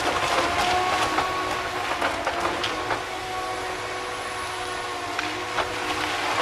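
Tigercat LH845D harvester's engine and hydraulics running with a steady whine as its harvester head saws and feeds a log, with frequent sharp cracks and knocks of wood.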